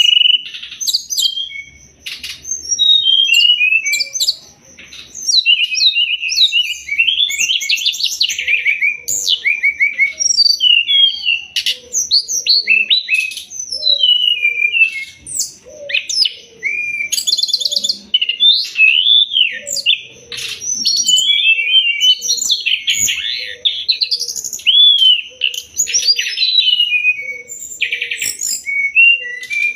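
Brown-chested jungle flycatcher (sikatan rimba dada coklat) singing without pause: a long, varied run of quick whistled phrases, rapid trills and sharp chirps, used as a tutor song for cage birds.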